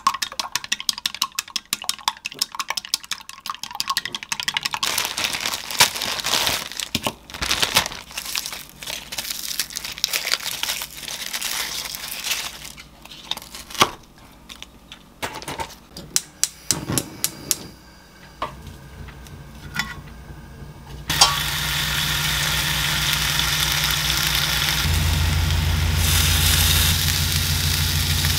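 Wooden chopsticks rapidly clicking against a glass cup as two eggs are beaten, followed by scattered knocks of kitchen prep and a knife cutting bacon on a wooden cutting board. About two-thirds of the way in, a steady hiss with a low hum begins as bacon cooks in a square pan on a gas stove.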